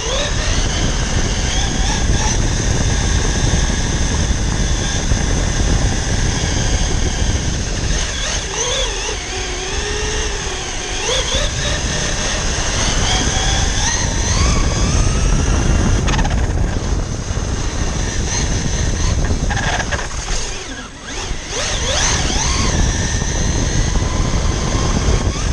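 Radio-controlled car's electric motor whining, its pitch rising and falling with the throttle, over a heavy rush of tyre and wind noise at the car-mounted camera. The sound dips briefly about three-quarters of the way through.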